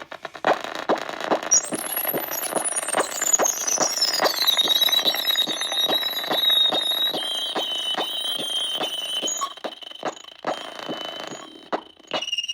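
A high, piercing ringing tone that slides down in pitch over a few seconds and then holds steady, over a quick, even train of light taps or clicks.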